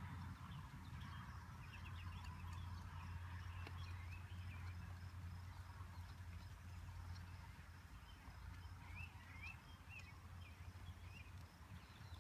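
A ridden horse moving around a soft dirt arena, its hoofbeats faint under a low steady rumble. Birds chirp briefly a couple of seconds in and again near the end.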